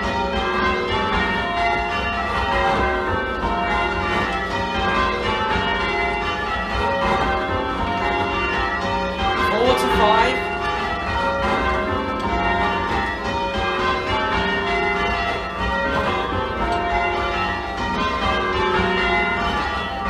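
A ring of eight church bells (15 cwt tenor in F) rung full-circle in changes, each bell striking in turn in a steady, continuous pattern. The trebles sound a little shrill. A voice calls out briefly about halfway through.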